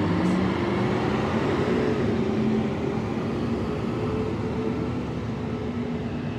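Rear-loader garbage truck's diesel engine running as the truck drives off, a steady engine note that slowly fades as it pulls away.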